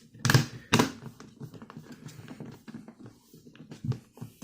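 Air fryer parts being handled and fitted back together during reassembly: two loud knocks about half a second apart near the start, then a run of small clicks and rattles.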